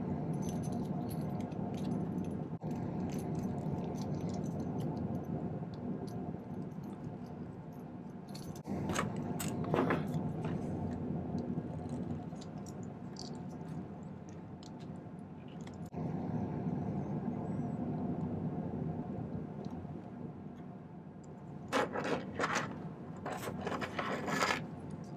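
A steel bezel-setting tool scraping and clicking against the sterling silver bezels of a pendant as its stones are set. Small metal clicks and clinks come in two clusters, one about a third of the way in and one near the end, over a steady low hum.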